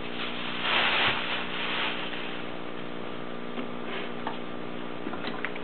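Brief rustling about a second in, the sound of the napa cabbage and its wrapping being handled, over a steady low hum, with a few faint clicks later on.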